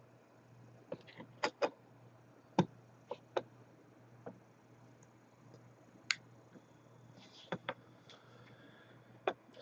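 Scattered light clicks and knocks of small tools and parts being handled and set down on a work surface, about ten at irregular intervals, over a faint steady low hum.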